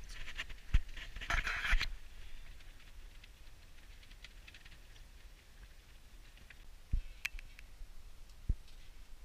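Quiet handling noises in a tent: a short rustle about one and a half seconds in, a few soft thumps and a sharp click, with faint scratches and ticks in between.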